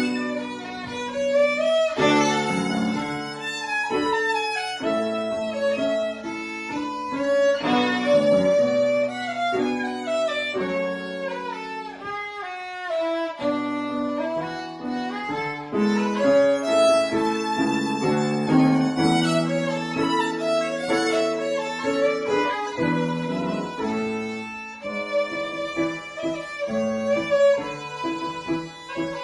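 Violin playing a melodic classical-style piece, with lower notes sustained beneath the melody as accompaniment.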